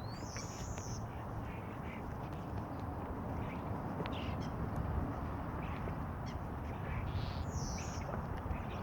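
Several noisy birds giving short calls at irregular intervals, over a steady low rumble.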